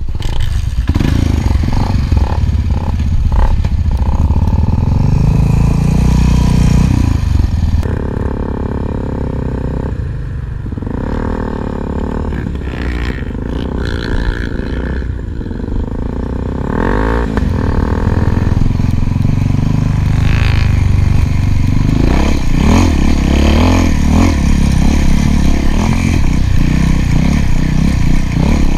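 Single-cylinder four-stroke dual-sport motorcycle engine running under way, its revs rising and falling repeatedly as it rides over rough ground. It eases off somewhat in the middle and picks up again about two-thirds of the way in.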